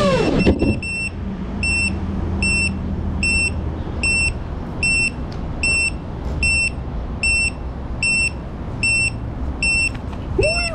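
GEPRC Mark5 FPV quadcopter, its motors whining down near the start, then its beeper sounding short, high beeps, about one every 0.8 seconds: the repeating alarm of a quad that has landed and been disarmed. A steady low rumble runs underneath.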